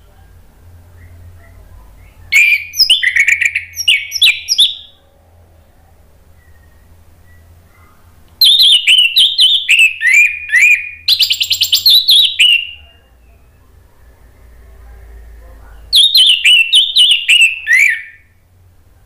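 Orange-headed thrush (anis merah) singing three loud bursts of song. Each burst is a quick string of notes sliding down in pitch, and the middle burst is the longest.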